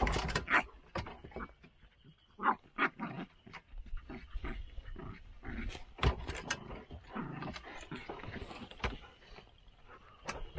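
Blood-tracking dogs growling, with many sharp crackles and knocks throughout.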